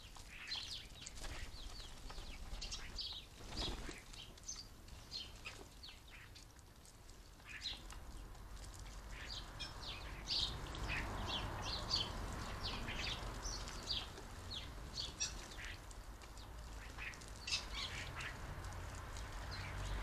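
A carrion crow pecking at seed on a wooden bird table, many short sharp taps, thickest in the second half, with garden birds calling among them.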